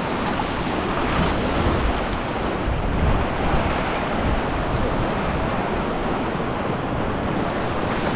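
Shallow surf breaking and washing around the wading anglers' legs, a steady rush of water, with low wind rumble on the microphone.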